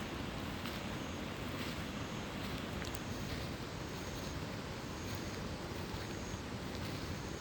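Mountain valley stream rushing steadily with a loud, even wash of water. A faint high-pitched chirp recurs about once a second over it.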